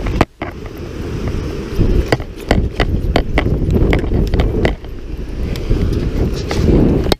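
Wind buffeting the microphone with a heavy low rumble, over an irregular string of footsteps.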